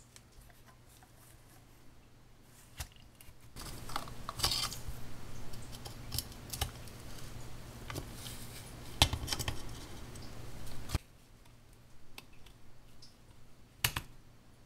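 Needle-nose pliers working on a tin-plate toy car chassis and its friction-motor bracket: light metal clicks, then several seconds of scraping and rattling that stops suddenly. A single sharp click comes near the end.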